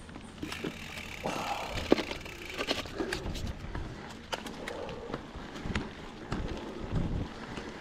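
Mountain bike rolling over a rough dirt and gravel trail: tyre noise with frequent small clicks, knocks and low thumps as the bike rattles over stones and ruts.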